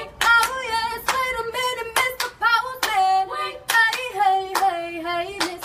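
A woman singing unaccompanied, holding long notes that step down in pitch about halfway through. A small group of people clap a steady beat, roughly two claps a second, behind her.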